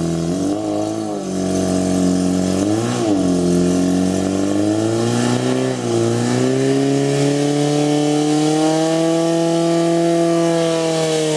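Portable fire pump engine running at high revs, its pitch dipping and rising again a few times, then climbing and holding high while it drives water through the hoses to two nozzles.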